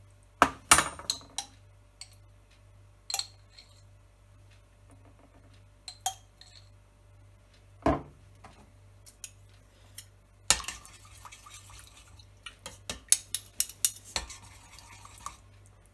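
Metal teaspoons clinking and tapping against a stainless steel pot and against each other, in scattered single knocks at first. In the last five seconds comes a quick run of clatter and scraping as a spoon works inside the pot.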